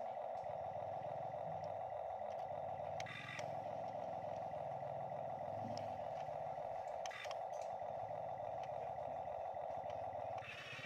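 HUINA remote-control toy excavator whirring steadily as its electric motors work the boom and bucket. The whir breaks off briefly about three and seven seconds in and again near the end.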